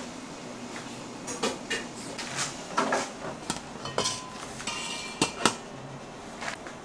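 Stainless steel steamer pots and bowls knocking and clinking as they are handled, a dozen or so irregular knocks, one leaving a short metallic ring about four seconds in, with the two sharpest clanks near the end.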